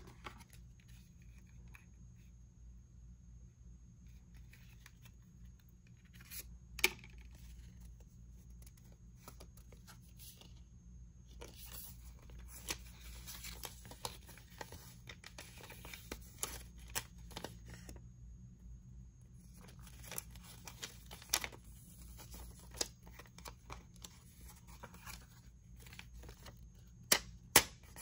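Packaging being torn and peeled open by hand. Two long stretches of tearing and rustling are broken up by sharp clicks and taps of handling, with a few louder snaps near the end.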